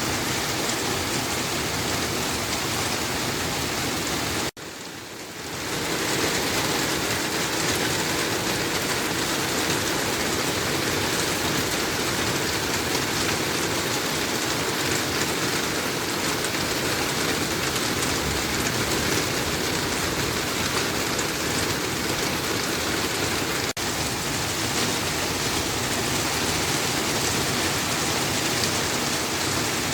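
Steady rain falling, a dense even patter. It drops away sharply about four and a half seconds in and swells back up over a second or so.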